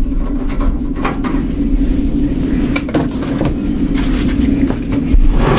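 Scattered metal clicks and knocks from handling the top screws and lid panel of an Octominer X12 Ultra mining case, over a steady low hum. The largest knock comes near the end.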